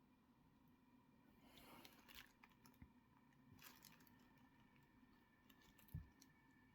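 Faint clicks and rustling of costume jewellery being handled, with a soft low thump near the end.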